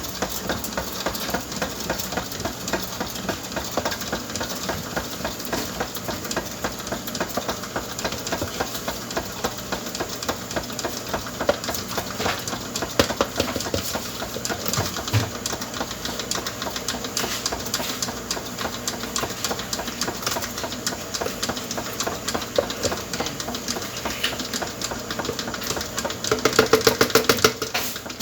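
Electric mixer running steadily, its beaters whirring with a fast rattle as they beat chocolate cake batter. It gets louder for a couple of seconds near the end.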